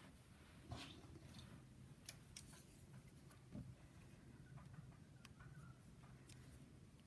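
Near silence, with a few faint ticks and rustles of hands handling small crochet pieces and a sewing needle.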